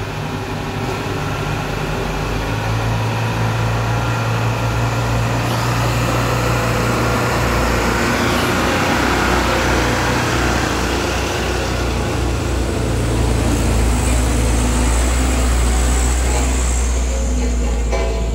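Heavy truck's diesel engine running hard under load on a steep climb, a steady low drone with road and mechanical noise that slowly grows louder.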